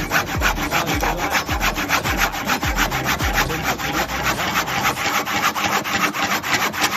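A hand saw cutting through wood with fast, even rasping strokes, about six a second. The saw is still cutting normally after being run through nails.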